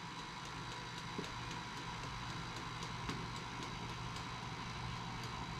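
Electric tilt-head stand mixer running steadily as it beats cookie dough, with a couple of faint ticks.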